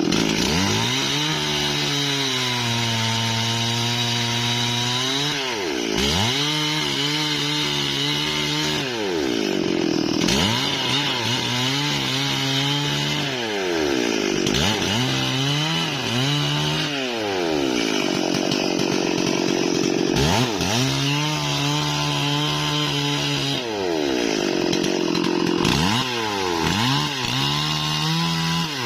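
Stihl MS 440 two-stroke chainsaw cutting through wood, its engine pitch dropping and holding low as the chain bites, then rising again as the cut eases, about five or six times over.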